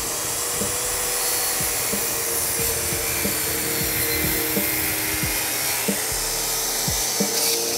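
DeWalt circular saw running steadily with its blade in the wood, trimming the overhanging ends of cedar deck boards to a line along a straightedge guide.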